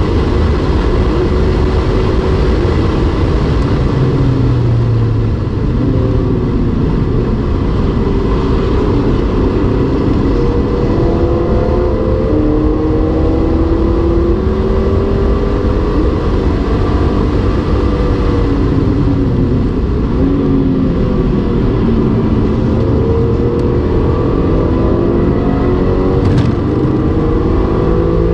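BMW E46 M3's S54 straight-six engine heard from inside the cabin on track at high revs. The pitch falls as the car brakes and downshifts for a corner, then climbs again under full acceleration, with several rises and falls as it goes through the gears.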